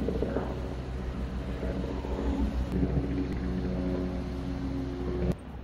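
Engine of a passenger tour boat on the river, a steady hum with a low rumble. It stops abruptly near the end, leaving fainter wind and water noise.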